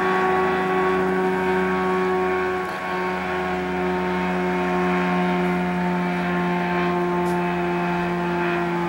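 Engine and pusher propeller of a two-seat weight-shift microlight trike flying overhead: a steady drone that falls slowly in pitch as it passes.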